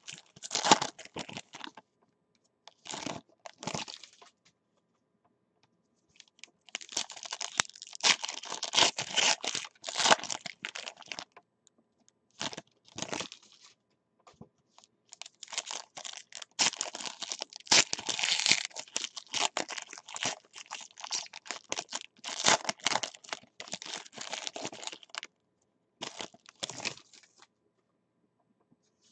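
Foil trading-card pack wrapper being torn open and crinkled, in irregular bursts with short silent gaps between them.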